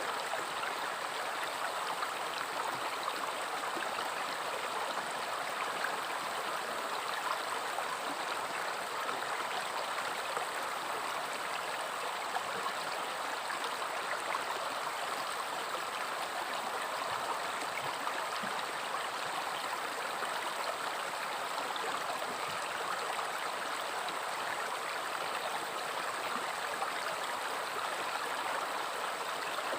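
River water flowing over rocks: a steady rushing and babbling that holds even throughout.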